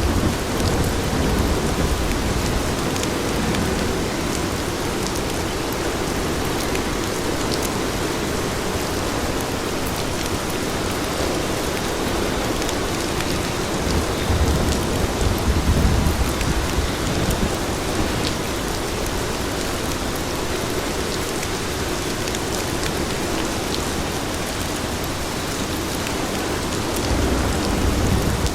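Steady rain falling on city pavement, an even hiss, with a low rumble swelling about halfway through and again near the end.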